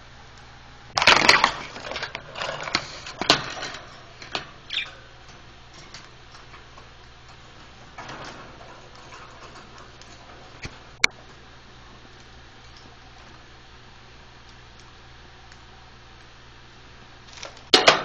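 Budgerigars fluttering and scrabbling in a wire cage: a burst of wing flaps and rattling about a second in, then a few scattered taps and scuffles, one sharp click, and another short flurry near the end.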